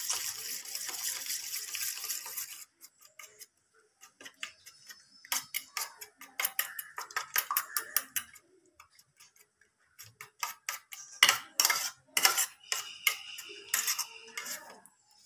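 Egg, chopped onion, green chilli and spices being mixed by hand in a small steel bowl: irregular clicks and taps against the metal, with a scraping hiss for the first couple of seconds.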